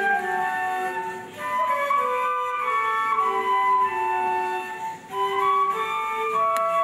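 Music with a flute playing the melody in held notes, pausing briefly between phrases about a second in and again near five seconds.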